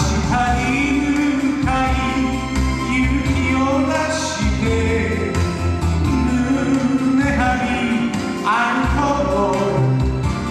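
A man singing a song into a microphone with musical accompaniment.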